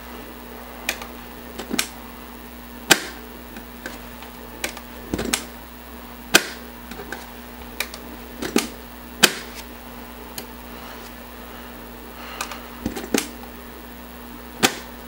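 Irregular sharp clicks and clacks of a slim Compaq 5.25-inch floppy drive's metal eject mechanism being worked by hand. The mechanism is gummed up with old grease. There are about a dozen clicks, with a few louder clacks among them.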